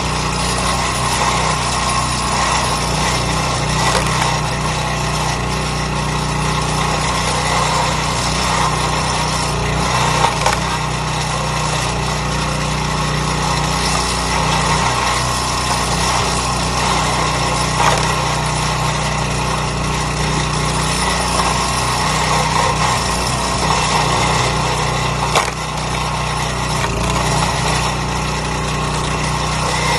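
Log splitter's small gasoline engine running at a steady speed, with a few brief sharp cracks.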